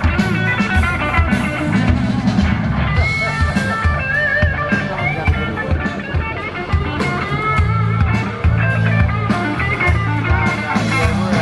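A live blues-rock band plays an instrumental break, with an electric guitar lead bending notes over bass and drums.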